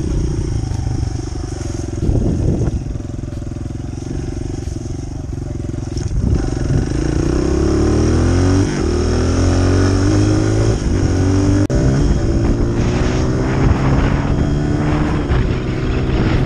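Honda CRF100F dirt bike's single-cylinder four-stroke engine running hard under the rider, its revs climbing and dropping back as it accelerates through the gears.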